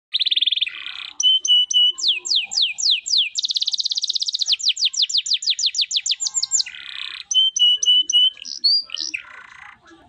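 Domestic canary singing a long, varied song without pause: buzzy rolls, a run of downward-sweeping notes, a very fast trill of repeated notes and more quick repeated notes.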